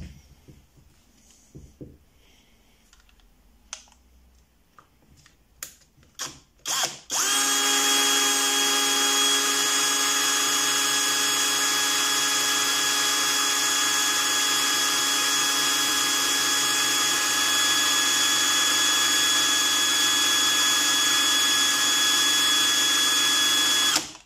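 Parkside Performance X12V brushless cordless drill running unloaded at a steady full speed in second gear, about 1400 rpm, with an even whine that holds one pitch throughout. A few light clicks of handling come before it starts about seven seconds in, and it stops abruptly near the end.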